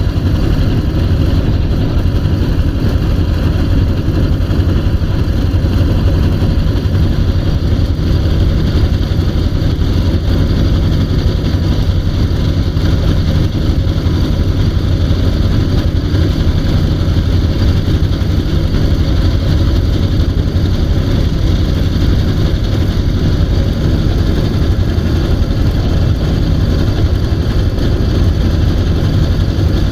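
An engine running steadily with a constant low hum and no change in speed.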